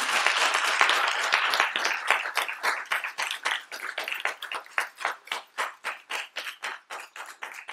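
Audience applauding: dense at first, then thinning to fewer, separate claps that die away near the end.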